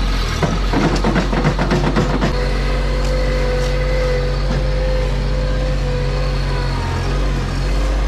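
Bobcat MT100 mini track loader's engine running steadily, with a clatter of dirt and clods dropping from its bucket into a steel dump trailer in the first couple of seconds. A steady whine rises over the engine for a few seconds after the dump.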